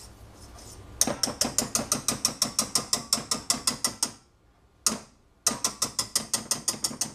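Wire balloon whisk beating thick chocolate batter in a stainless steel saucepan, its wires clicking against the pan's sides in a rapid, even rhythm of about seven strokes a second. It stops briefly in the middle, with one lone click, then starts again.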